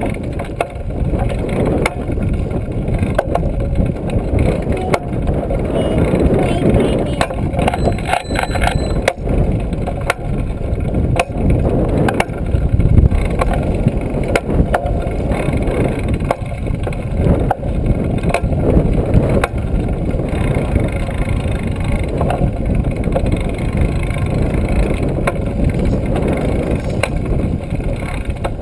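Trail-a-bike rolling along, heard from a camera on its handlebars: a steady low rush of wind and road noise with frequent rattles and knocks from the bike.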